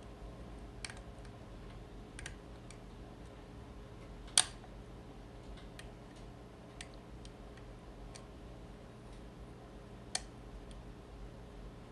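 Small, irregular metal clicks from a lock pick working the levers of a vintage four-lever US Mail padlock under tension from an Allen wrench, with one sharp, much louder click about four and a half seconds in and another near ten seconds.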